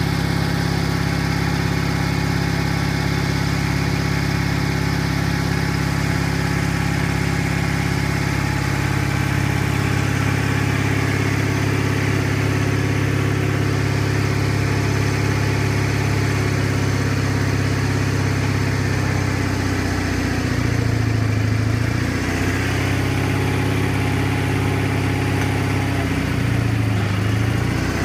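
Gravely 16G tractor engine running steadily, its speed sagging briefly and recovering twice in the last third.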